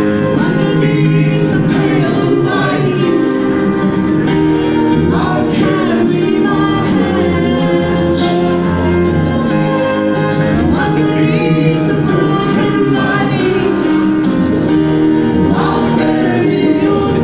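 Live band playing a song with a lead vocal, guitar, keyboards and drums, heard from the audience.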